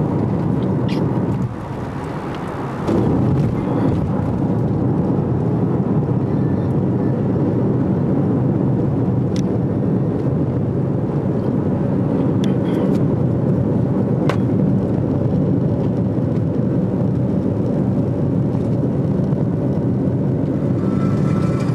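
Steady road and wind noise heard from inside a car's cabin cruising at freeway speed, with a brief drop in level about a second and a half in.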